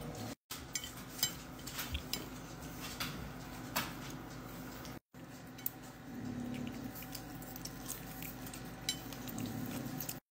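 Scattered light clicks and taps as a capuchin monkey handles and eats fried fish at a ceramic plate, over a steady low hum. The sound cuts out completely twice, for a moment each time.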